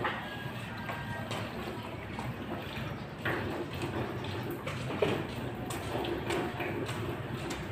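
Steady background ambience with scattered light clicks and knocks, and one sharper knock about five seconds in.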